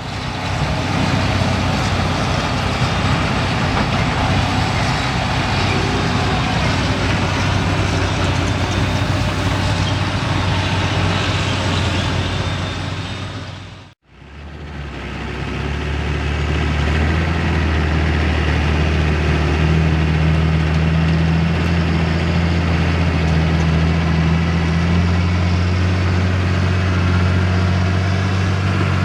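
Large diesel engines of heavy farm machinery running steadily under load, in two stretches joined by a short drop-out about halfway through; the second is deeper and steadier.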